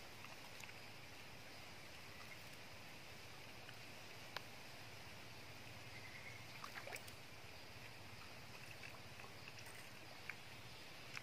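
Faint, steady outdoor background hiss with a few soft, sharp ticks: a single one about four seconds in, a quick cluster near the seven-second mark and another near the end.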